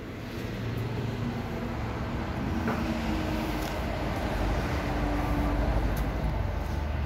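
Low, steady rumble of a motor vehicle engine with faint steady tones, growing gradually louder through the middle and latter part.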